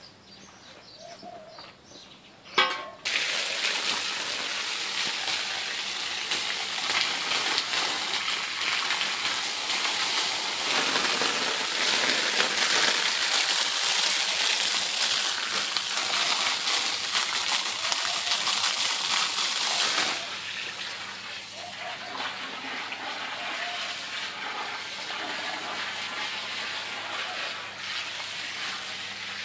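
A sharp click, then a stream of water suddenly starts gushing onto a shag carpet about three seconds in, with a loud steady hiss and splash. After about twenty seconds it drops to a quieter steady rush of water.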